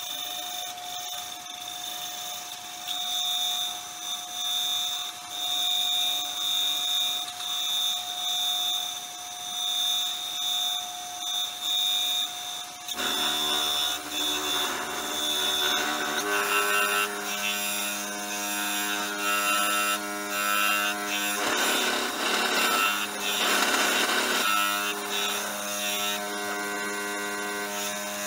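Nova Galaxi DVR wood lathe running with a steady motor whine while a hand-held pad rubs against the spinning cedar-and-resin bowl, the rubbing swelling and fading about once a second. About halfway through a lower hum joins the motor, and the rubbing grows rougher and louder in the second half.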